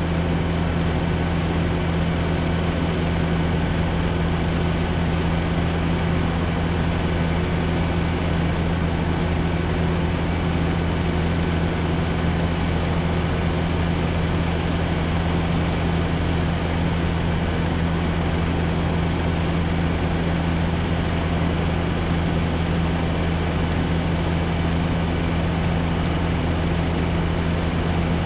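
Steady, unvarying hum of the Nissan truck's engine running to drive the hydraulic pump of the Socage truck-mounted boom lift while the boom raises the basket.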